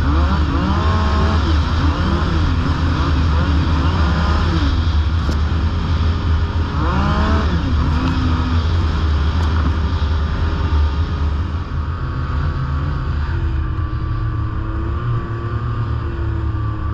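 Yamaha snowmobile engine running under way on the trail, its pitch rising and falling with the throttle through the first half, then holding steadier and a little lower near the end, over a constant low rumble.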